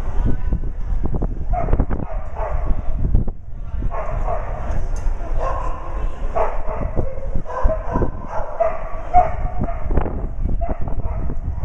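A dog barking again and again in short, fairly high barks, most densely through the middle of the stretch, over a steady low rumble.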